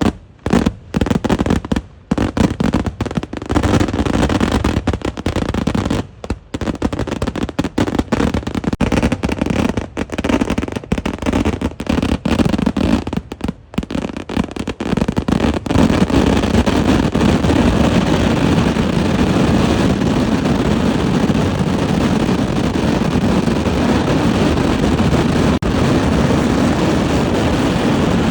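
Kerala temple-festival fireworks (eeduvedi): a loud, rapid barrage of explosions going off in quick succession. About halfway through, the blasts come so fast that they merge into one continuous din.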